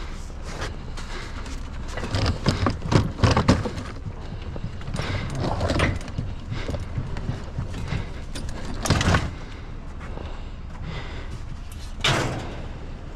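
Irregular knocks and clatter of scrap metal items being shifted and stacked on a loaded trailer, loudest in a burst of bangs a couple of seconds in and again about nine and twelve seconds in.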